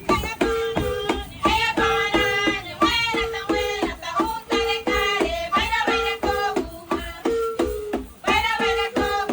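Traditional Embera dance music played live: voices singing a repeating melody over a steady percussive beat of about two strikes a second, with a recurring held instrumental note.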